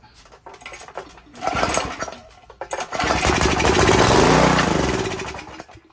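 Briggs & Stratton 4.5 hp single-cylinder engine on a pressure washer, pull-started. It fires and runs for a few seconds, pitch rising then sinking, then dies. It runs only on fuel squirted into the intake, so it has spark and compression but the carburetor is not delivering fuel.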